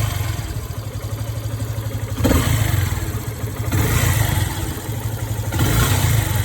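Yamaha FZS V3 motorcycle's single-cylinder engine running at low revs, its steady low pulsing rising in level twice, about two seconds in and again near the end.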